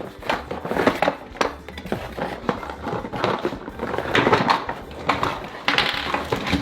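Packaging rustling and plastic toy pieces clicking and clattering as a Play-Doh playset is unpacked, in many short irregular knocks, over background music.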